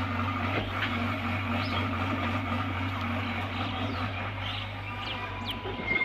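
Hyundai 85A compact excavator's diesel engine running at a steady drone while the machine digs earth.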